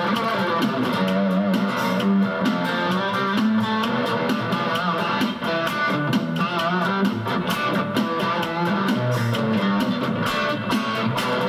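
Electric guitar on its Alnico bridge pickup playing a melodic theme, with wavering, vibrato-like notes, over a steady bass line.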